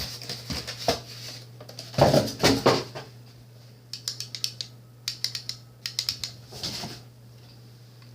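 A toy cap gun being handled out of its packaging: knocks and rustling about two seconds in, then a quick run of small sharp clicks.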